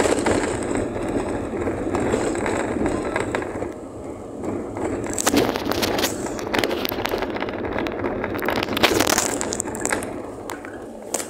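A vehicle driving over a rough dirt track: tyre and road noise with the body rattling, and sharp knocks over bumps, most around the middle and near the end.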